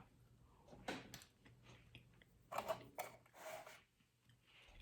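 Faint chewing of a brownie: a few short, soft mouth sounds about a second in and again around three seconds in.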